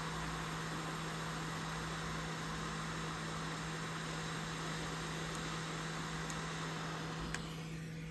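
A small electric fan running steadily: a constant low hum under an even hiss, easing slightly near the end.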